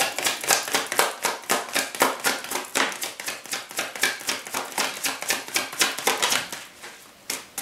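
A deck of tarot cards being shuffled in the hands: a fast run of crisp card slaps and flicks, several a second, that stops about six and a half seconds in, with one more click near the end.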